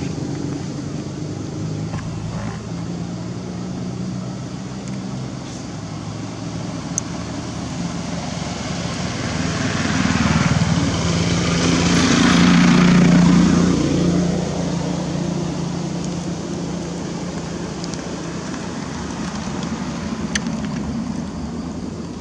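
Steady low hum of a motor vehicle engine, with one vehicle passing that swells to a peak about halfway through and then fades away.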